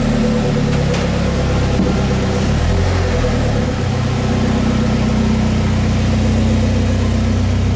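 Vehicle engine running steadily at idle, its note shifting slightly about four seconds in.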